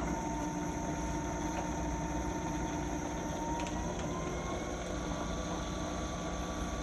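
Birmingham BPV-3949 vertical milling machine's spindle running steadily in low range after a sharp click at the start, a steady gear whine with a higher tone that creeps up slightly about halfway through.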